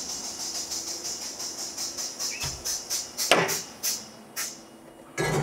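Vixen Aquablast 1215 vapor blast cabinet hissing with a rapid, even pulsing that thins out and stops about four seconds in. Then come clunks as the cabinet's side door is unlatched and swung open, the loudest near the end.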